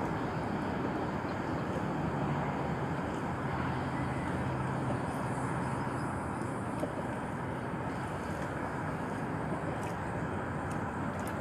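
Steady outdoor background noise, an even hiss, with a faint low engine hum for a few seconds near the start.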